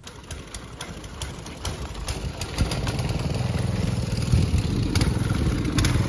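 Engine running, a steady low rumble that grows louder about two and a half seconds in, over outdoor background noise with scattered clicks.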